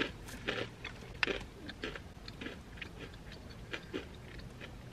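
A person chewing a mouthful of crunchy Indian snack mix, with irregular crisp crunches about three times a second.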